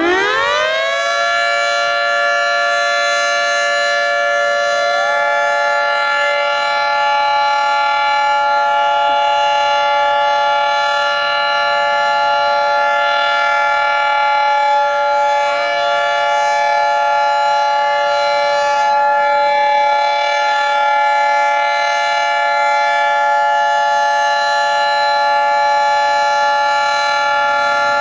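Federal Signal 2T22 dual-tone mechanical warning siren finishing its wind-up and then holding a steady, loud two-tone chord for a siren test. A fainter second siren winds up about five seconds in.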